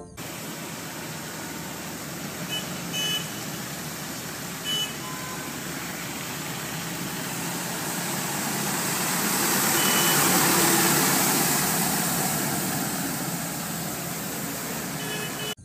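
Zoomlion street sweeper truck running on a wet road as it passes, a steady rushing engine and road noise that swells to its loudest about two-thirds of the way in and then fades, with a few short faint beeps.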